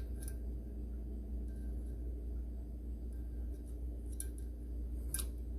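A few light metallic clicks and scrapes of an engine oil dipstick being fed back into its tube, the sharpest one near the end, over a steady low hum.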